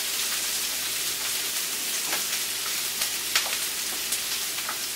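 Chopped onion and garlic sizzling in hot oil in a frying pan as they sauté, stirred with a spatula, with a few sharp ticks as the spatula knocks against the pan.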